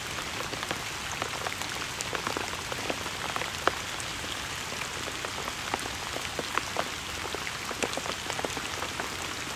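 Steady rain falling, an even hiss with scattered sharp ticks of single drops striking close by.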